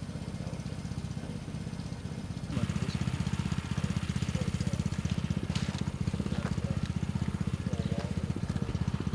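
Engine of a flood-control pump running steadily with a fast low pulsing beat, much louder and nearer about two and a half seconds in.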